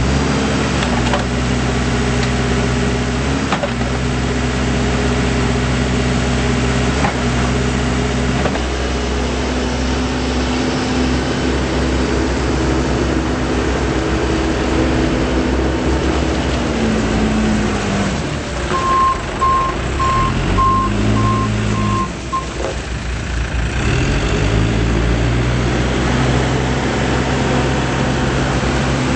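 Case 580M Series 2 backhoe loader's diesel engine running steadily. Its speed drops and climbs again a few times around the middle. A reverse alarm beeps in a regular on-off string for about three and a half seconds while the engine speed changes, the sign that the machine is backing up.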